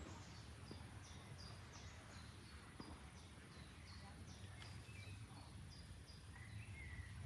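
A songbird calling a quick series of short, high, falling notes, about two a second, which stop about five seconds in. Underneath is a faint, steady low rush of flowing water.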